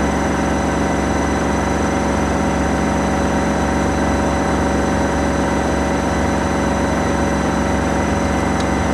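Washing machine running with a steady, unchanging motor hum.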